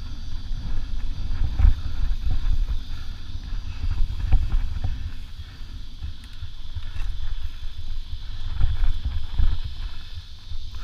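Mountain bike rolling fast over rough dirt singletrack: wind buffeting the helmet-mounted camera's microphone as a fluctuating low rumble, with the bike knocking and rattling over bumps several times.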